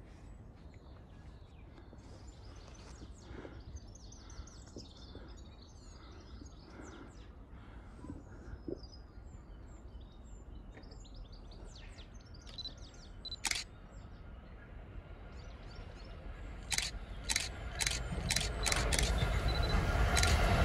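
Small birds chirping over quiet outdoor background noise, with a few sharp clicks in the second half. Near the end the rumble of an approaching train builds steadily louder.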